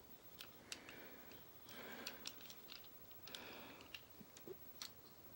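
Faint, scattered clicks and brief rustling of a plastic transforming robot toy being handled, its parts moved and snapped into place.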